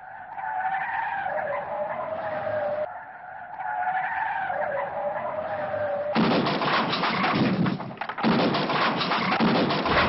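Vehicle crash tests: a wavering high whine for the first six seconds, then a sudden loud crash of metal and plastic crumpling, with a second crash about two seconds later.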